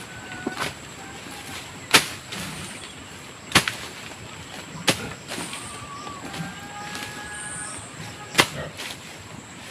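A hand tool striking sharply while overgrown grass is cleared from the ground: four strikes at uneven intervals a second or more apart.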